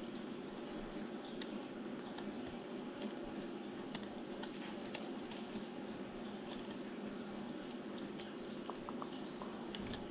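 Faint, irregular small metallic clicks and ticks as a spinner and its ring are twisted onto a wide-gap (EWG) fishing hook with pliers and fingers, over a steady background hiss.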